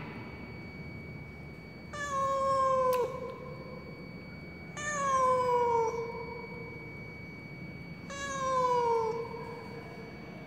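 Black-and-white domestic cat giving three long, mournful meows about three seconds apart, each falling in pitch at the end. The uploader takes it for the distress crying of a lost cat.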